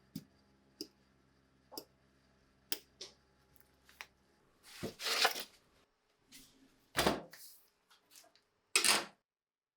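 Small metal parts and hand tools being handled on a workbench: a few light clicks and taps about a second apart, then three louder, half-second handling sounds of metal against metal.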